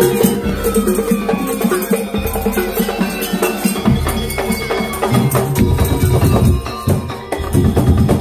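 Madurese daul music: a percussion ensemble of drums and small kettle gongs playing a busy, steady rhythm.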